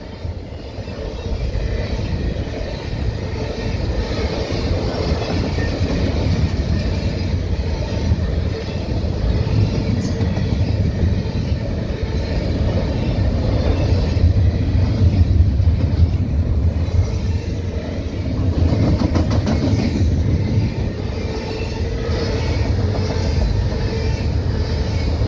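Double-stack container train of articulated well cars passing, its steel wheels rumbling steadily on the rails.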